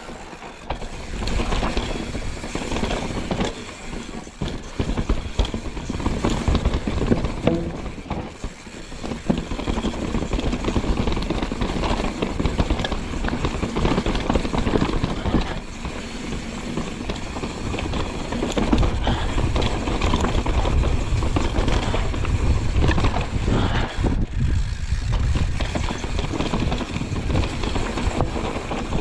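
Mountain bike descending a rough trail: wind rumbling on the microphone, tyres running over the dirt, and the bike rattling and knocking over bumps, with two brief easings.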